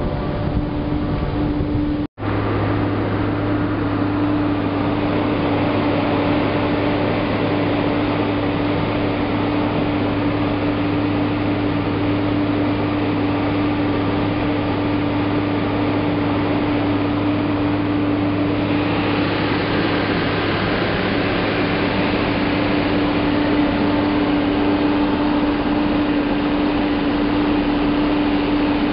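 Asphalt drum plant machinery running with a steady, loud hum and a constant low tone. There is a brief break about two seconds in, and a hiss grows in the higher range about two-thirds of the way through.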